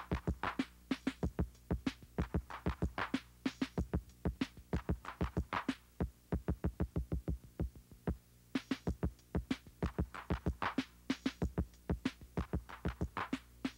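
Hip-hop drum machine beat: a quick, repeating pattern of sharp drum hits with no rapping over it.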